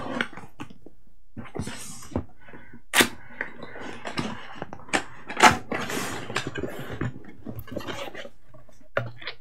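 Cardboard box being handled and opened: rustling and scraping of the cardboard, with a series of sharp taps and knocks, the loudest about three seconds in and again about five and a half seconds in.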